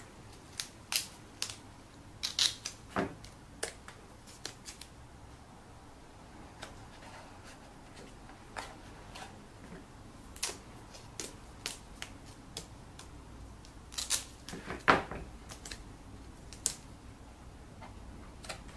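Gaffer tape being pulled off the roll, torn and pressed onto a cardboard egg box: scattered sharp clicks and short rasps, with a couple of longer, louder rips about two seconds in and about three-quarters of the way through.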